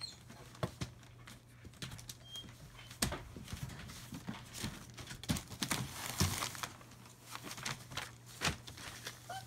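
Newspaper bedding crinkling and rustling under German Shepherd puppies moving about on it, with scattered irregular scratches and taps.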